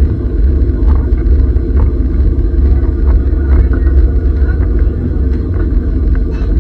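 Steady low rumble of a historic train running, heard from on board, with faint scattered ticks.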